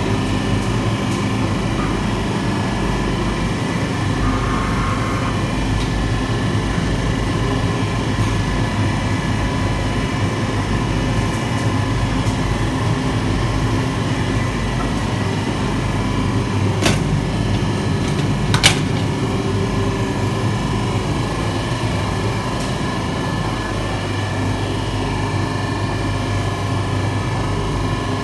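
A 30-tray rotary rack oven running, with its forced-draught burner firing: a steady mechanical hum with a few fixed tones. Two sharp clicks come about two-thirds of the way through, the second louder.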